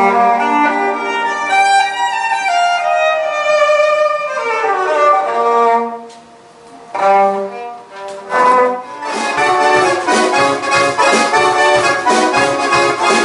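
Violin playing a solo passage with a descending run, a brief pause, then more phrases; about nine seconds in the band comes in with accordion and a steady drum beat.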